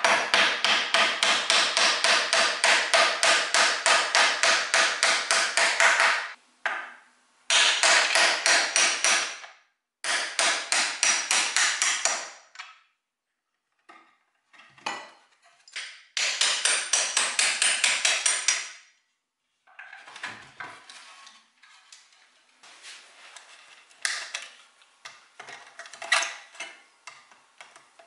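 Small hammer tapping on a metal bolt end set in a bent-plywood chair frame, in runs of quick, even blows, several a second, with short pauses between the runs. The last third is quieter: scattered lighter taps and clicks.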